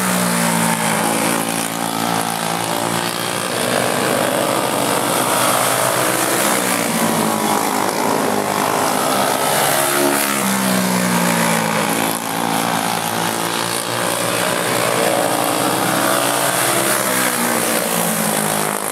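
Several winged champ karts racing on a dirt oval, their engines buzzing and their pitch rising and falling again and again as they come off the turns and pass.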